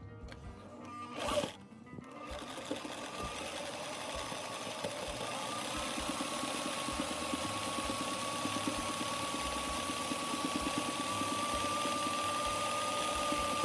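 A 1961 Singer 503A Rocketeer sewing machine runs steadily, sewing a cam-driven zigzag stitch with a twin needle, in rapid even stitches with a steady motor whine. It starts after a brief loud noise just over a second in.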